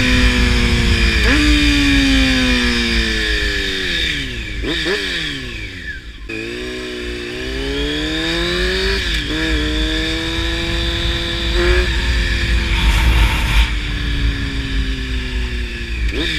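Honda CBR600F4i's inline-four with a slip-on exhaust under way: the engine note falls as the bike slows, with quick throttle blips on downshifts a few seconds in. It then pulls up through the gears, with two upshifts that drop the pitch each time, and eases off to a falling note with one more blip at the end, wind rushing underneath.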